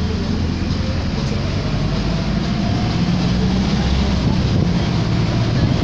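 A vehicle running steadily, with a continuous low rumble of engine and running noise and a faint tone rising slowly in pitch.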